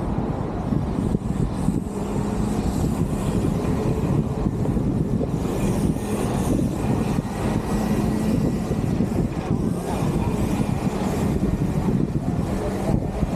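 Steady road traffic, a continuous rumble of passing vehicles.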